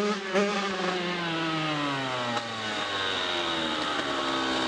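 Small Kawasaki dirt bike engine: a quick throttle blip at the start, then the engine note falls over about two seconds and settles into steady running at lower revs.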